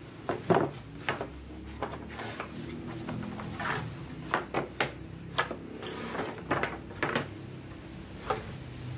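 Long softwood boards knocking and sliding against each other and a wooden tabletop as they are laid out by hand: about a dozen short, irregular wooden knocks, the loudest about half a second in.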